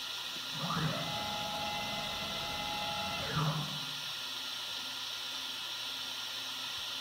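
Laguna SmartShop CNC router running with a steady hiss. About half a second in, a machine whine rises, holds level for about two and a half seconds, then falls away.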